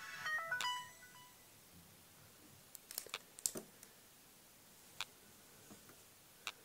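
LG L40 smartphone's startup jingle, a short chiming melody from its own speaker as the phone boots, ending about a second in. After it, a few sharp clicks of the phone being handled.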